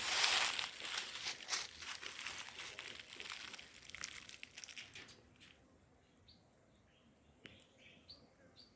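Crinkly rustling and scraping for about five seconds, then quiet with a few short, high chirps.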